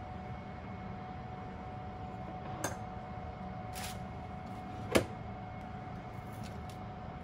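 Small glass measuring cups being handled, clinking sharply twice, the second clink, about five seconds in, the louder, over a steady hum with a faint constant whine.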